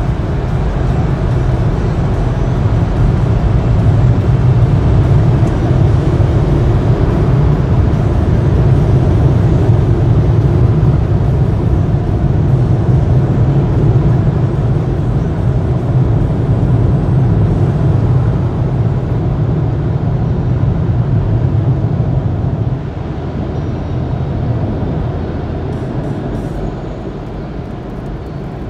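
Car wash air dryers blowing hard, a loud steady rush with a deep hum, heard from inside the car. It drops off about three-quarters of the way through and keeps fading as the car pulls clear of the dryers.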